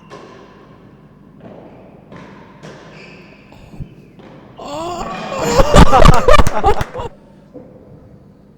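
Real tennis rally: a few thuds of the ball off racket and walls about a second apart, then the crowd breaks into loud cheering and clapping for about two seconds, cutting off abruptly.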